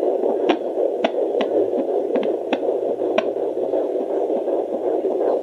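Home fetal Doppler's speaker playing a baby's heartbeat as a fast, steady pulsing whoosh, at a normal fetal rate of around 140 to 150 beats a minute. Several sharp crackles break in at irregular moments.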